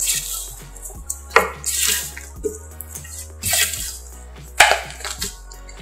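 Fluffy slime made of white glue and shaving foam being squeezed and stretched by hand, giving wet squelching, crackling noises in about four bursts. Soft background music runs underneath.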